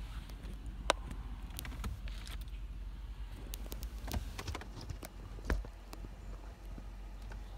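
Scattered clicks and taps from a phone being handled, fingers moving over it near the microphone, with two sharper knocks, one about a second in and one past the middle, over a steady low rumble.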